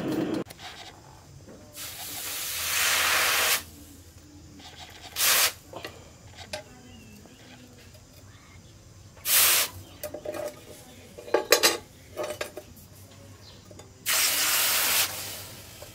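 Red-hot steel knife blade, forged from a piece of chainsaw, being quenched in a trough of water. It sizzles and hisses in separate bursts as it is dipped in again and again, with the longest bursts about two seconds in and near the end.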